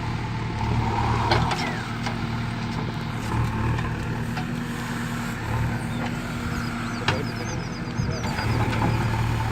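JCB 3DX backhoe loader's diesel engine running, rising in load and falling back several times as the machine works, with a few sharp knocks.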